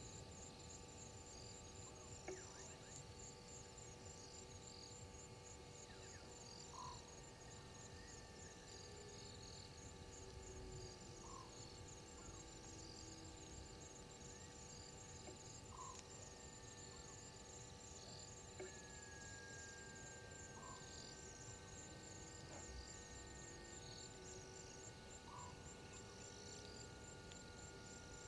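Faint night-time bush ambience: an insect trills steadily in a high, rapid pulse, with other scattered high chirps, while a short low call repeats about every four and a half seconds over a steady low hum.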